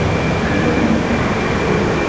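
200 series Shinkansen train pulling slowly away from the platform: a steady running noise of the train with a constant low hum.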